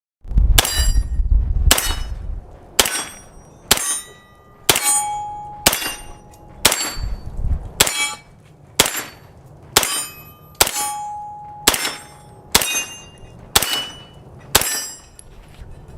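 Series of about fifteen sharp metallic clangs at a steady pace of roughly one a second, each ringing briefly: typical of shots striking steel targets.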